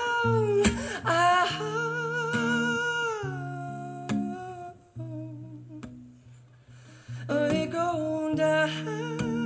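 Male voice humming a wordless, wavering melody over acoustic guitar. The voice drops out for about two seconds midway, leaving the guitar playing alone, then comes back.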